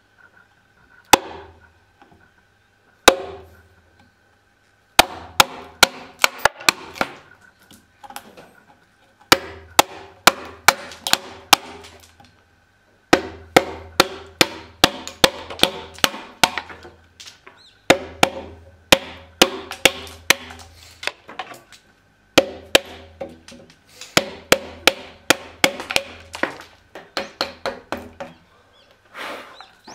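Steel hammer striking the hooped handle of a timber chisel, driving it into a Japanese pine beam. There are two single blows at first, then runs of sharp, ringing blows about three a second with short pauses between runs.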